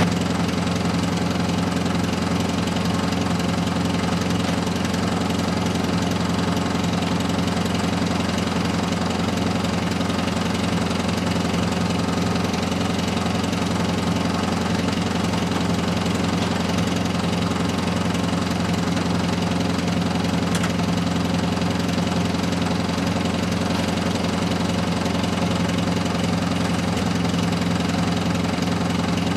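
Gasoline engine of a Mighty Mite bandsaw mill running steadily at an even speed.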